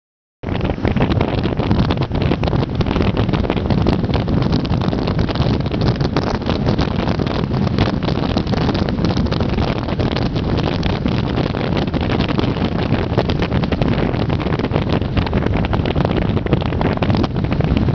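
Steady wind buffeting the microphone of a camera on a moving vehicle, with the vehicle's road and engine noise beneath. It starts abruptly about half a second in.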